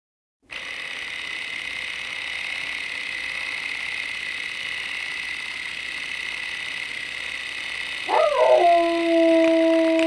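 A steady hiss starts about half a second in. Near the end a dog howls: one long call that swoops up, then holds a steady pitch and is the loudest sound.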